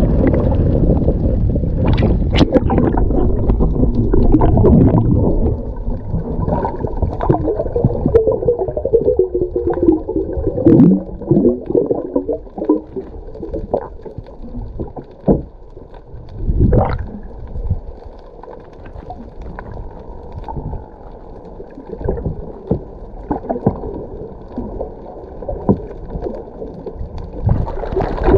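Water sloshing loudly around the camera at the surface, then muffled underwater sound with gurgling and a few sharp clicks and knocks.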